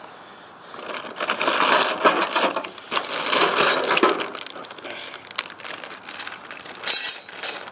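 Loose metal nuts and bolts clinking and rattling as they are rummaged through to find a nut of the right size, with some crinkling.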